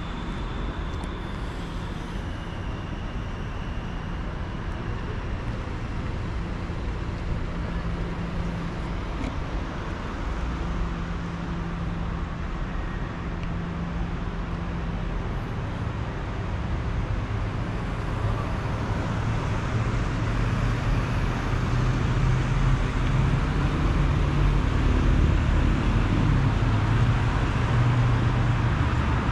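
Street traffic: car engines running and tyres on the road, with no one speaking. It gets louder in the second half as cars drive past close by.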